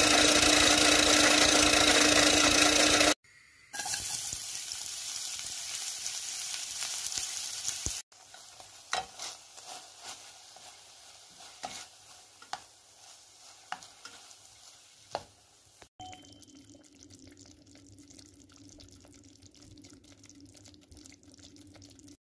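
An electric mini food chopper's motor whirring loudly, then cutting off about 3 seconds in. Then food sizzling in a frying pan, followed by a spatula clinking and scraping against the steel pan as onions are stirred, with a faint steady hum near the end.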